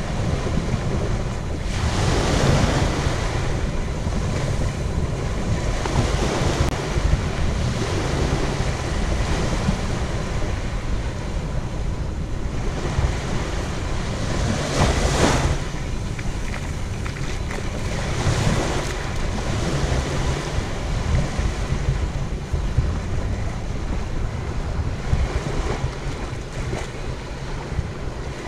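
Waves washing onto a sand beach in repeated surges, the strongest about halfway through, with wind rumbling on the microphone throughout.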